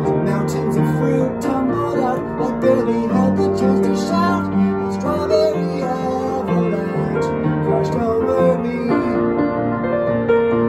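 Upright piano playing a pop-song accompaniment, with a man singing along; the voice drops out about nine seconds in while the piano carries on.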